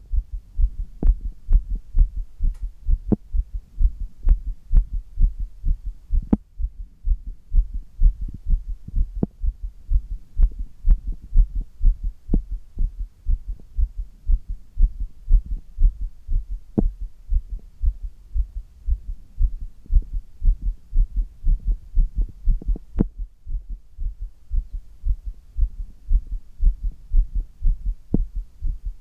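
Human heartbeat picked up close on the chest, beating hard and regular after the exertion of a handstand. Now and then there is a sharp click over the deep thumps.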